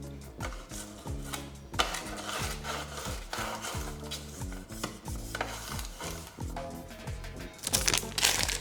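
Background music with a steady beat, over a rough rubbing, scraping sound of kitchen work that grows louder near the end.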